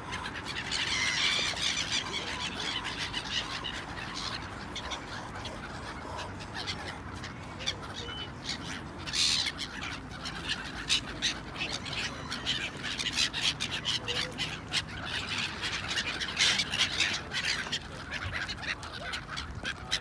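A flock of gulls calling over the water: many short, harsh squawks overlapping, coming thickest near the start and again in the second half.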